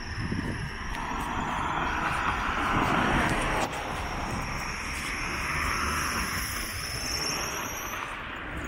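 Car traffic passing on a city street: tyre and engine noise swells to a peak about three seconds in, drops off, and swells again as another car goes by, with a faint steady high whine above it.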